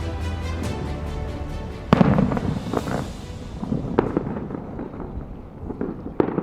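Fireworks shells bursting overhead in a string of separate bangs, the loudest about two seconds in with a deep rumble after it. Show music fades out in the first second.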